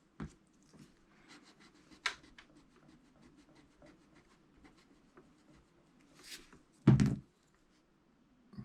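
Soft graphite pencil drawing lines on paper: faint scratchy strokes with small ticks of the lead. A short burst of voice comes near the end.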